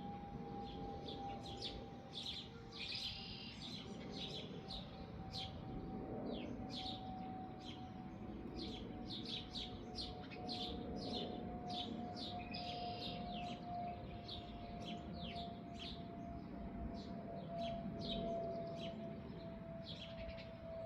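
Many small birds chirping in short, quick calls, scattered throughout. Underneath runs one steady faint tone that drifts slowly lower.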